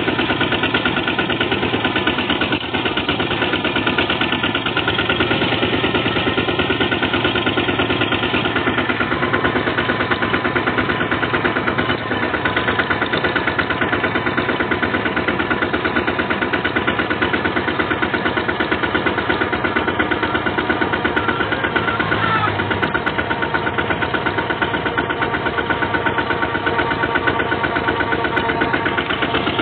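Single-cylinder diesel engine of a two-wheel walking tractor running steadily under load while towing a cart, a fast, even chugging that holds the same pace throughout.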